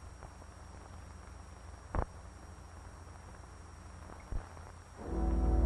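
Steady hiss and low hum of an old film soundtrack with two sharp pops, about two seconds in and again near the end; music comes in about five seconds in with a held low chord.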